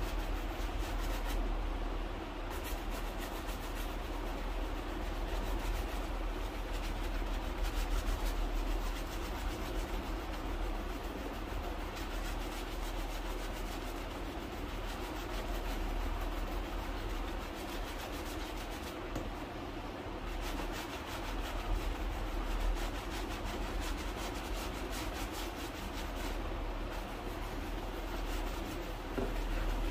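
Continuous rubbing on a leather shoe during cleaning and polishing, a long run of close scratchy strokes, over a steady low rumble.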